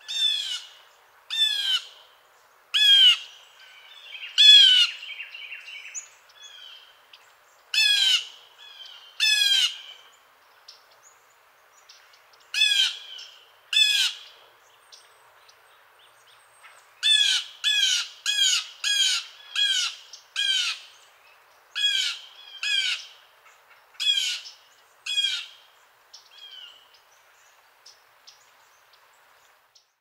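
Blue jay calling: about eighteen short, loud, repeated calls in loose groups of one to six, with fainter calling between them.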